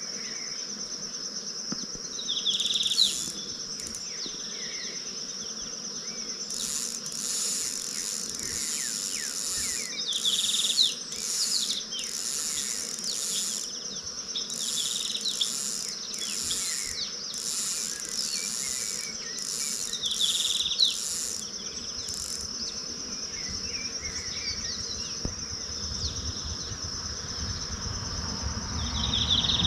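Insects shrilling steadily in riverside vegetation, with a second, higher insect buzz pulsing on and off through the first two-thirds. A few short, sharper chirps stand out about every eight to ten seconds.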